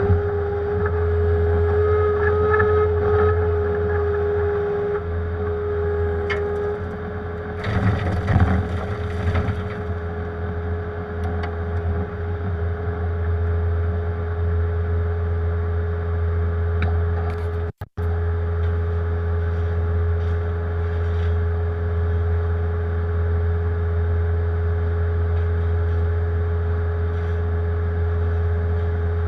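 Diesel engine of a compact Bobcat machine running steadily under load, heard from the operator's seat, with a steady whine over the low drone. A brief scraping clatter about eight seconds in, and the sound cuts out for an instant a little past halfway.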